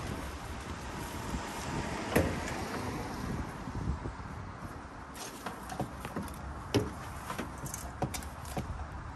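Knocks and light clicks from a water-fed pole and its hoses being handled at the back of a van. One sharper knock comes about two seconds in, and a run of quick clicks comes in the second half, over steady outdoor background noise.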